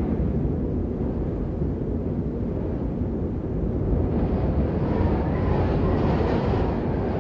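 Blizzard wind blowing hard with a steady deep rumble. About four seconds in, a gust swells, adding a rushing hiss that eases off near the end.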